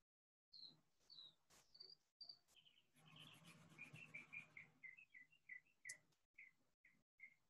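Near silence, with faint high chirps repeating about two to three times a second, most likely a small bird. About three seconds in comes a brief scratchy patch, consistent with pencil strokes on paper.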